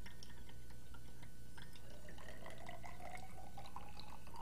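Liquid trickling and dripping into laboratory glassware, with scattered small drips and a faint tone that slowly rises in pitch from about halfway through, as when a vessel fills. A steady low hum runs beneath.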